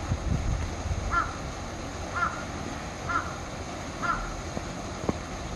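A bird calling four times, evenly spaced about a second apart, over a low background rumble.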